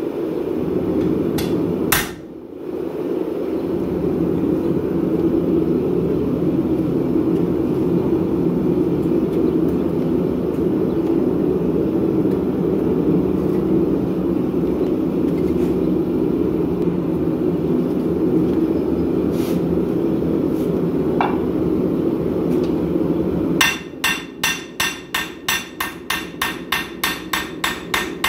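A propane forge burner running with a steady rushing noise, after a single hammer blow about two seconds in. Near the end, rapid hand-hammer blows on red-hot 5160 steel on an anvil start up, about four or five a second, each with a short ring.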